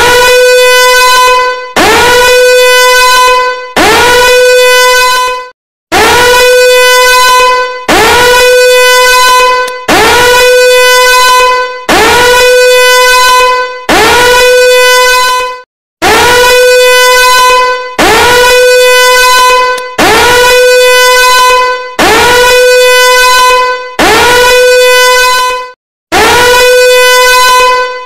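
Danger alarm horn sounding in repeated blasts, about one every two seconds. Each blast is a loud, buzzy tone that swoops up in pitch at its start, holds steady for under two seconds, then breaks off briefly before the next.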